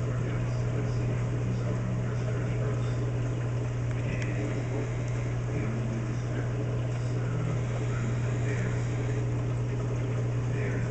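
Steady low hum with a wash of running water from a reef aquarium's pumps and circulation equipment.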